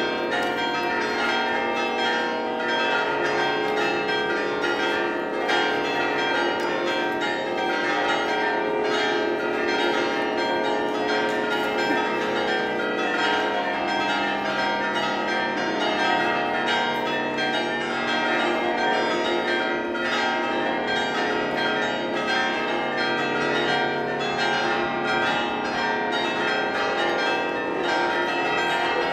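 Many church bells of the Saint-Sernin basilica tower ringing together in a dense, continuous festive peal, strokes overlapping with no pause.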